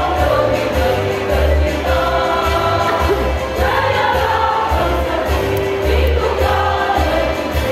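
Women's choir singing in harmony over a low bass line that comes and goes in steady blocks.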